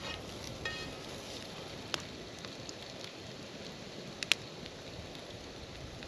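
Wood campfire crackling beside a cast-iron skillet of diced potatoes frying, a steady hiss with a few sharp pops, the loudest a quick double pop just after four seconds in.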